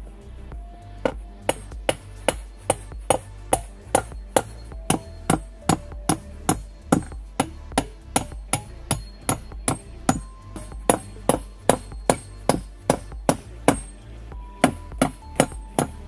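A hammer driving nails into wooden floorboards: a steady run of sharp strikes, about three a second, a few of them leaving a short ringing tone.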